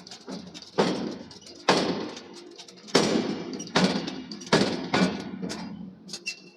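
Forging hammer striking a steel billet: about six heavy blows at uneven intervals, each ringing out briefly.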